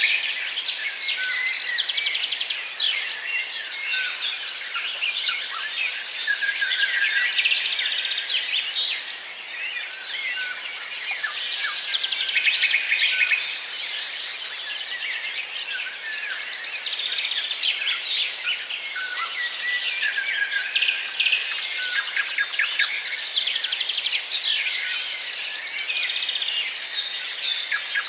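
Many small birds chirping and twittering at once, a dense, continuous chorus of short high calls and trills with no pause.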